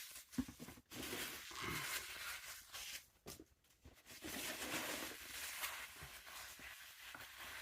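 Foam packing peanuts rustling and squeaking as they are scooped and pulled out of a cardboard box, with a few small clicks and knocks of handling.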